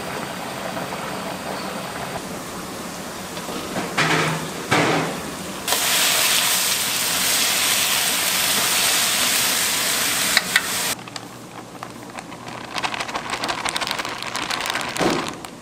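Lotus root slices bubbling in a boiling pot, then a loud steady sizzle from about six seconds in as they are stir-fried in a hot wok, which cuts off suddenly about eleven seconds in. After that comes a quieter dry, crackly pattering as flour is poured into a steel bowl.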